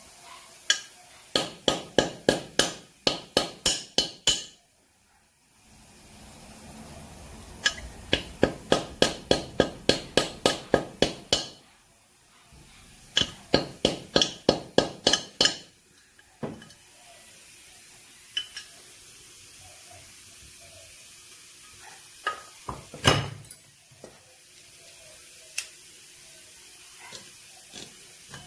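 Hammer blows on a valve jammed in a motorcycle's aluminium cylinder head, to drive it out: three runs of quick, sharp metal taps at about three a second, then a few separate knocks, the loudest a little past the middle.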